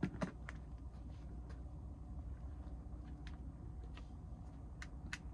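Sea-fishing rod and reel handled as a bite is answered: two or three sharp knocks at the start as the rod is taken from its rest, then sparse faint clicks over a steady low rumble.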